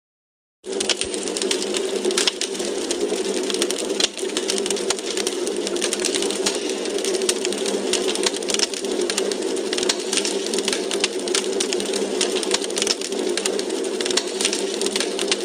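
Wood fire crackling: dense, irregular sharp pops and snaps over a steady hiss. It starts abruptly from dead silence about half a second in.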